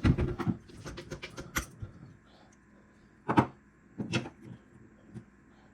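Screwdriver prying the planetary gear out of a KitchenAid Artisan stand mixer's gear housing. A quick run of metal clicks and scrapes in the first two seconds, then two sharper knocks close together around the middle.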